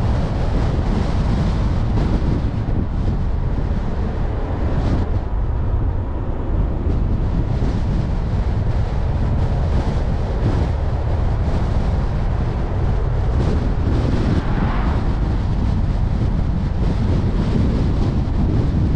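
Car driving at speed: a steady low rumble of road and wind noise, with wind buffeting the microphone.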